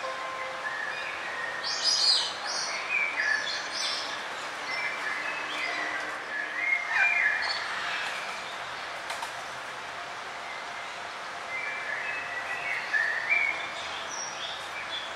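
Forest birds chirping and calling in short phrases over a steady background hiss, busiest about two and seven seconds in and again near the end.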